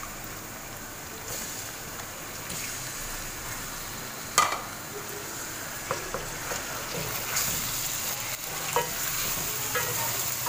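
Raw chicken pieces frying with onions in hot oil in a karahi, a steady sizzle as they are stirred with a spatula. A few knocks against the pan are heard, one sharper about four seconds in.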